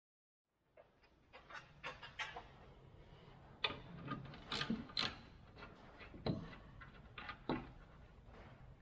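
Hand tools and metal parts clicking and clanking in irregular knocks while work goes on at a car's radiator support, with a few sharper knocks in the middle.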